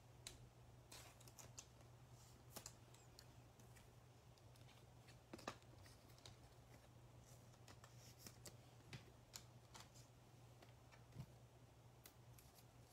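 Near silence: room tone with a low steady hum and a few faint, scattered clicks from trading cards being handled.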